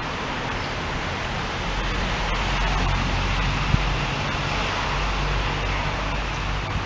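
Steady outdoor background noise: an even hiss with a low rumble that swells about two seconds in, and a single click near the middle.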